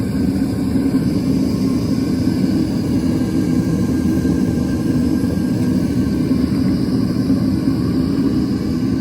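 Propane torch burning steadily in a plaster-and-sand blast furnace: a loud, even, low rushing noise with no breaks.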